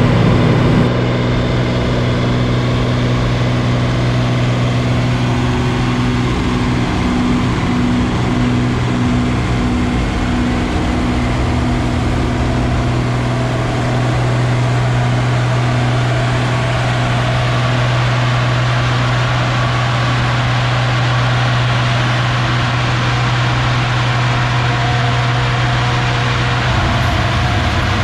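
Farm machinery running steadily at the grain bin and dryer setup: a constant deep hum with a fainter, higher hum above it. It gets a little quieter about a second in.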